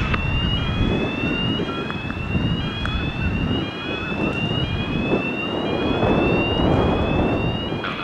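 Electronic warning alarm, plausibly from the raised bascule bridge: a repeating tone that rises slowly in pitch, with a new sweep starting a little more than once a second. Wind rumbles on the microphone underneath.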